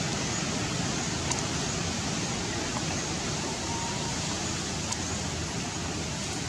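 Steady rushing outdoor background noise, with a few faint clicks and a brief faint whistle a little past the middle.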